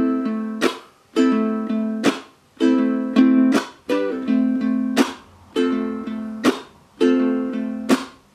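Low-G ukulele strummed in a thumb-strum pattern: two ringing thumb strokes and then a muted, percussive chunk, repeating about every second and a half. It moves through the A minor, G and F chords.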